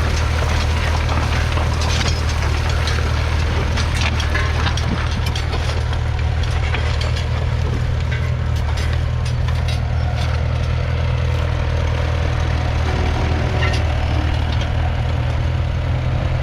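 1962 McCormick International B275's 2.3-litre four-cylinder diesel engine running steadily, with scattered light crackles and clicks over it.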